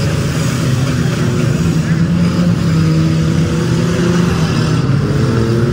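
Several demolition derby car engines running loud together, their pitch rising and falling as they rev.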